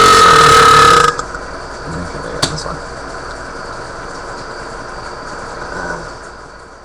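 A person's long, loud burp, held at a steady pitch, that ends about a second in. Quieter room noise follows with one short click, and another loud burp starts at the very end.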